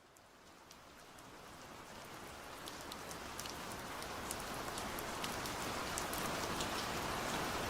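Steady rain falling, fading in from silence and growing steadily louder, with many individual drops ticking sharply above the even hiss.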